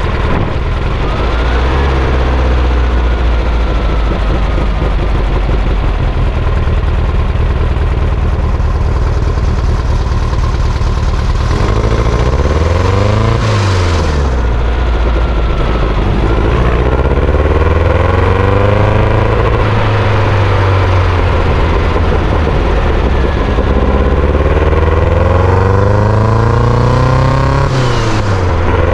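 Sand buggy engine running under way, revving up and falling back several times as it is driven hard, with a steady rumble between the climbs.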